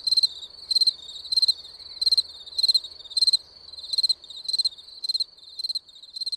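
Cricket chirping: short, high-pitched chirps, each a quick trill, repeating evenly about every 0.6 seconds and growing a little fainter near the end.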